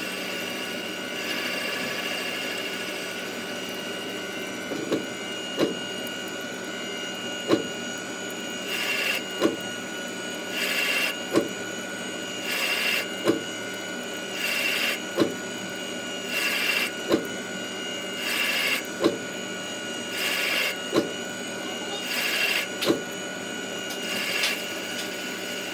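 CNC lathe machining a TD04 turbo compressor housing: a steady spindle whine with fixed high tones. From about five seconds in, a click and a short hiss of the tool cutting repeat about every two seconds as the program steps through its passes.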